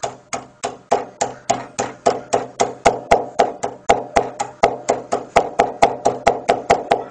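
Claw hammer striking tablets in a bag on a tabletop again and again, crushing them: a steady run of sharp knocks, about three to four a second.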